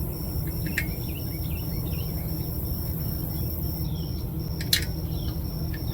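Outdoor background: a steady low rumble, a high, evenly pulsing insect-like trill, a few short falling chirps, and two sharp clicks, one about a second in and one near the end.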